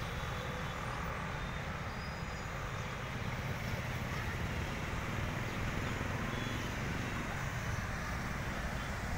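Steady road traffic noise from buses, cars and motorbikes, light and even, with a continuous low rumble.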